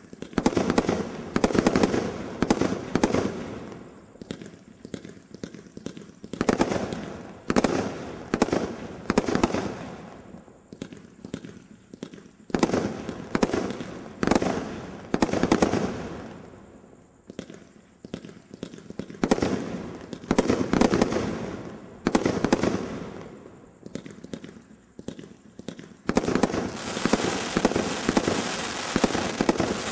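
A 500-gram consumer fireworks cake firing: sharp shots in quick volleys of several, each volley a few seconds apart and trailing off. Near the end the volleys give way to a dense, unbroken crackle as crackling stars burst overhead.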